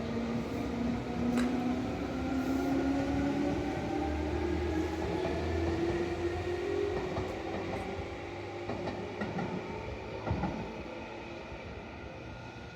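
Electric train accelerating away, its motor whine rising steadily in pitch over the first several seconds, then slowly fading, with a single knock near the end.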